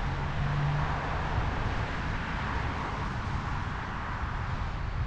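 Steady wind and road noise while riding along a road in traffic, with a low steady hum in the first second or so.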